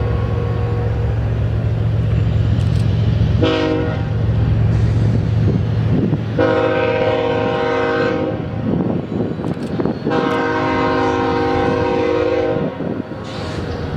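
Train horn sounding three times: one short blast, then two long blasts. A steady low drone from the train runs beneath the first half, and clattering knocks come in the second half.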